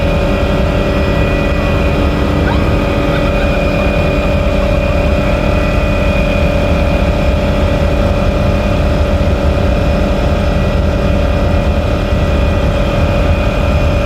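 Helicopter heard from inside the cabin with the doors off: a steady engine whine over a dense, fluttering low rumble of rotor and rushing air, unchanging throughout.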